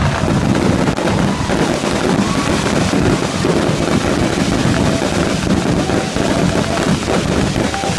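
Fireworks display crackling continuously: a dense rattle of many small bursts at a steady level.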